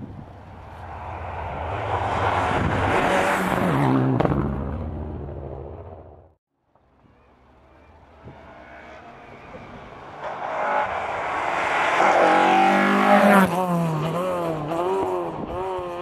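Two rally cars at speed on a closed tarmac stage. The first approaches, its engine loudest about four seconds in, then fades away. After a short break a second approaches, its engine note swinging up and down through gear changes as it passes, loudest near the end.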